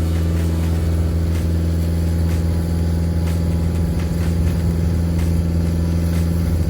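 Skid steer engine running steadily at a constant, high speed.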